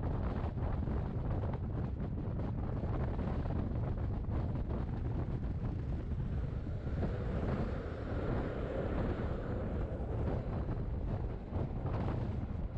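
Wind buffeting the microphone over the steady rumble of a Rhaetian Railway train running along the track, heard from an open window of the moving train.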